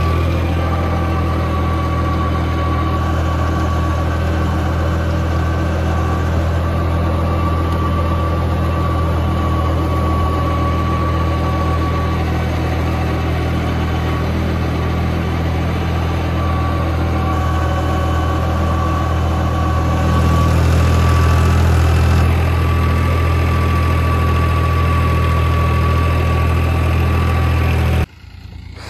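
Tractor diesel engine running steadily, with a thin steady whine above the engine note; the sound cuts off suddenly near the end.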